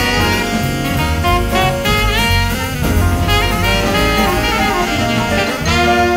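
Live small-group jazz: an alto saxophone plays quick melodic runs over bass, drums and cymbals.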